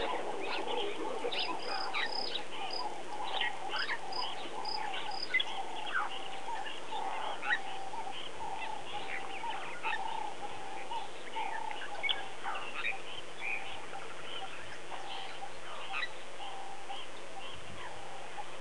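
Chorus of wild birds calling: many short chirps and whistles over a long run of short, repeated low notes that fade out about two thirds of the way through.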